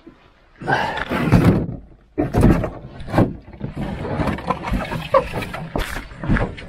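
A lightweight solo canoe being hoisted onto a paddler's shoulders for a portage. The hull and its gear knock and rub right against the chest-mounted microphone, with strained grunting breaths in the heaviest moments about a second and two and a half seconds in.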